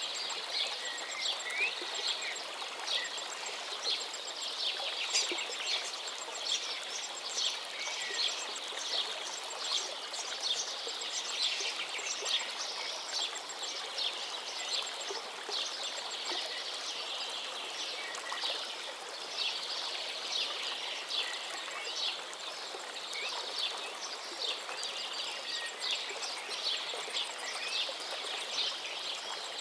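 Busy chorus of small birds chirping and twittering, many quick chirps overlapping throughout, over a steady background hiss.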